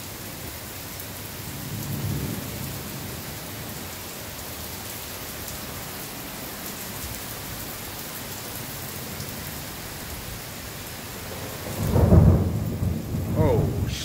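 Heavy rain pouring steadily, with a loud low rumble of thunder about twelve seconds in and a softer rumble about two seconds in.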